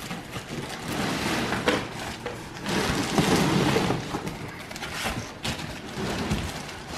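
Cardboard packaging scraping and sliding as an insert is pulled up out of a shipping box, with plastic wrap crinkling and a few light knocks. The rustling is loudest about three seconds in.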